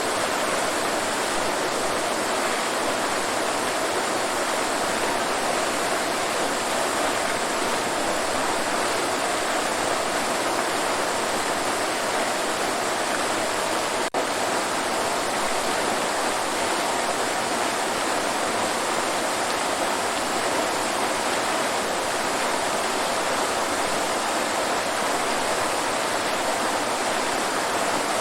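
Waterfall rushing in a steady, even roar of falling water, with a momentary dip in the sound about halfway through.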